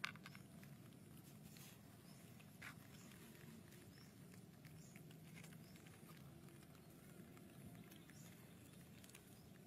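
Near silence: faint room tone with a low steady hum and a few soft, scattered taps, the first right at the start.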